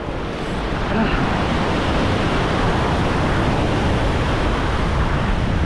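Surf washing against the shore with wind rumbling on the microphone: a steady, even noise with no separate events.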